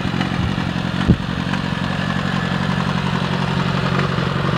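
Kawasaki ZRX1100 inline-four motorcycle engine in a reverse trike idling steadily, with a single brief thump about a second in.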